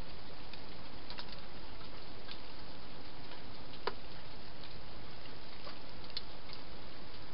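Wild hedgehog eating inside a plastic feeding box: scattered, irregular crunching clicks, one sharper click about four seconds in, over a steady hiss.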